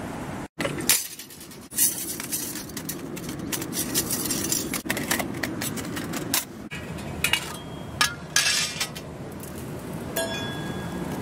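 Small sheet-metal clinks and clicks as the panels of a folding stainless-steel pocket wood stove are handled and set up, with a brief metallic ring near the end. A steady outdoor hiss runs underneath.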